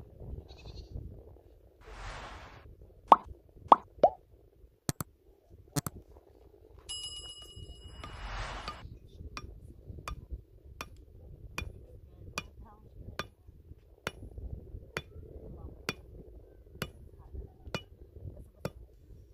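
Sharp knocks: three loud ones close together about three seconds in, then a steady run of lighter knocks at roughly one a second through the second half, with two short hissing bursts between them.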